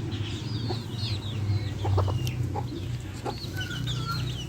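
Hens clucking softly while chicks peep in many short, high, falling chirps, with a low steady hum underneath.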